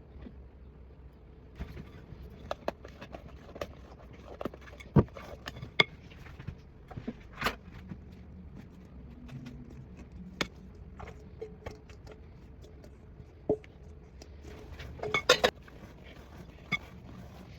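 Kitchen utensils and dishes clinking, knocking and scraping now and then over a low steady hum, with a quick run of clinks near the end.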